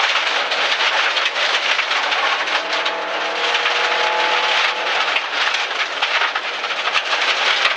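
Rally car driven flat out on a gravel road, heard from inside its roll-caged cabin: engine noise under a dense hiss of gravel thrown against the underbody, with many sharp stone pings. For a few seconds in the middle the engine holds a steady pitch.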